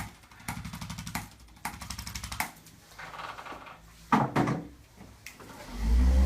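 Handheld chiropractic adjusting instrument tapping rapidly on the spine, giving fast strings of clicks for the first couple of seconds and sparser clicks after. Near the end an electric motor starts with a steady low hum.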